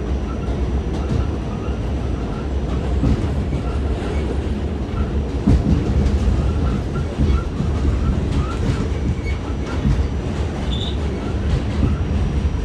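R46 subway train running at speed, heard from on board: a steady low rumble with irregular clicks and clacks of the wheels over the rail joints.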